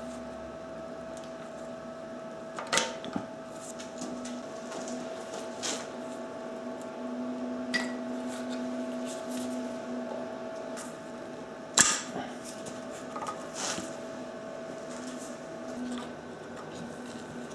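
Scattered clicks and metal taps from a screwdriver working on the carburetor hose clamps and fittings, with one louder knock a little past the middle, over a steady hum.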